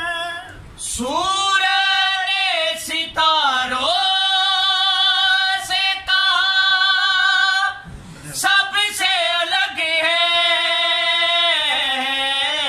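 Men's voices singing unaccompanied devotional Urdu verse in a high register, with long held notes and sliding ornaments. The singing breaks briefly for breath about a second in and again about eight seconds in.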